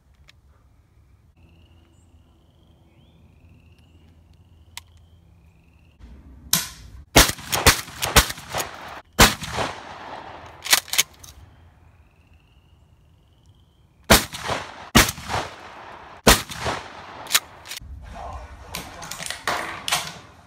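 Mossberg 500 Flex pump-action shotgun fired repeatedly in two quick strings, starting about six seconds in. Each shot is a sharp report with a short echoing tail.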